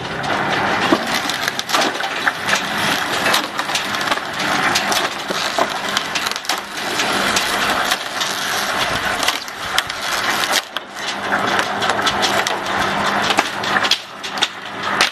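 Bamboo pole cracking and splintering as a belt-driven bamboo splitting machine forces it through its splitting blades, a dense crackle full of sharp snaps, over a steady low hum from the machine's drive.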